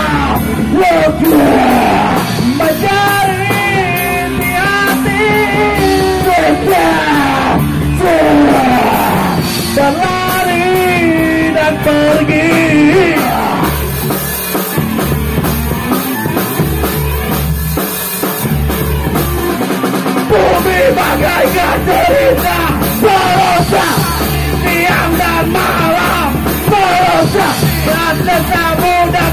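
Rock band playing live: a singer singing and yelling over a drum kit and the rest of the band. About halfway through the voice drops out for several seconds, leaving the band playing alone, then comes back.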